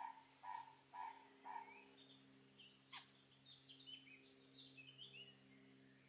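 Faint bird calls: a short call repeated about twice a second, then a brief run of higher, stepping chirps, with a single sharp click about halfway through. A faint steady low hum runs underneath.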